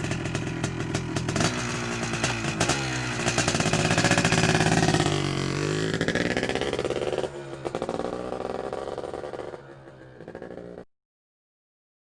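An engine revving, its pitch dipping and rising again. It drops back to a lower, rougher run about two-thirds through and cuts off near the end.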